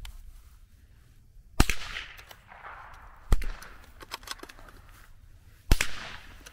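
.22 LR rifle shots: three sharp cracks roughly two seconds apart, each with a short echo trailing off.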